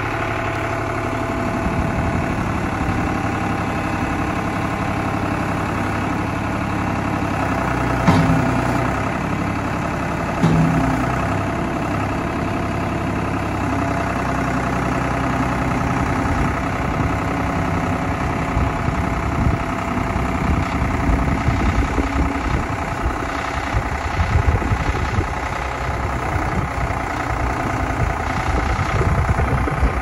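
New Holland TN75DA tractor's diesel engine running at a steady idle while the front loader's raised bucket is lowered to the ground, with two short clunks about a third of the way through. The engine sound turns rougher and less even in the second half.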